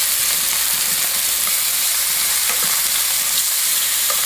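Chicken cutlets sizzling steadily as they pan-fry in a stainless steel pan, with a few faint clicks of metal tongs turning the pieces.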